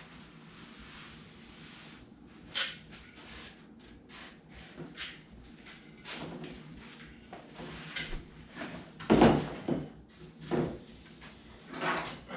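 Irregular knocks, taps and rubbing as foam board pieces are handled and fitted together. There is a sharp click about two and a half seconds in, and a cluster of louder thumps around nine to ten seconds.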